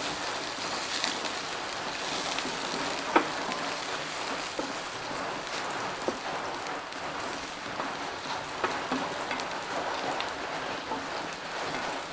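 Garlic and onion frying in hot oil in a pan: a steady crackling sizzle, with a few sharp clicks, the loudest about three seconds in.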